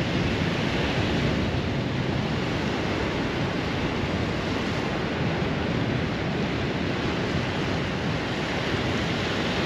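Small surf washing onto a sandy beach, a steady rushing noise, with wind on the microphone.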